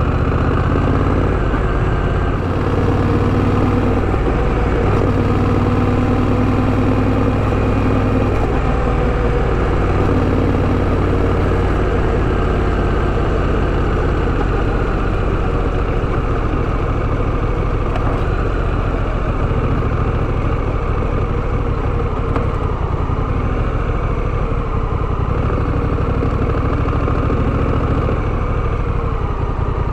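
Honda Rebel 1100's parallel-twin engine running steadily, its pitch stepping a few times in the first several seconds and then holding steady.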